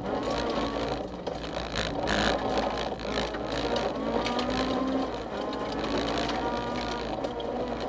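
Honda CRX rally car's engine heard from inside the cabin at full stage pace, its pitch climbing and dropping again and again with throttle and gear changes, over steady road noise.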